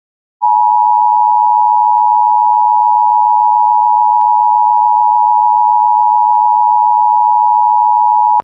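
Emergency Alert System attention tone: a loud, steady electronic alert tone near 1 kHz. It comes in about half a second in, holds for about eight seconds and cuts off abruptly near the end. It signals that an emergency alert message is about to be read.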